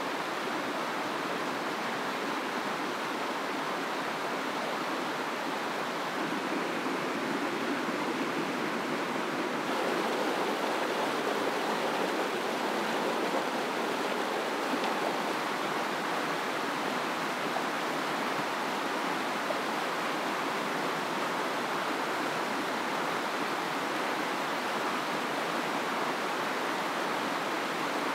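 Fast mountain stream rushing steadily over boulders, white water tumbling through rapids, a little louder from about ten seconds in.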